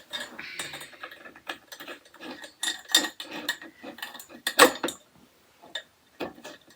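Small metal screws and flat-pack rack parts clicking and clinking as they are handled and fitted during assembly, in quick irregular taps with one louder clink a little past halfway.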